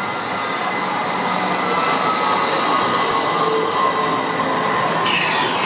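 A tram approaching and passing close by, its wheels running on street-level rails in a steady rumble that grows a little louder. A faint whine wavers in pitch through it.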